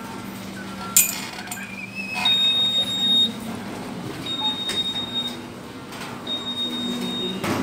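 An electronic beeper sounds one-second high beeps every two seconds, over a low steady hum. A single sharp clack comes about a second in.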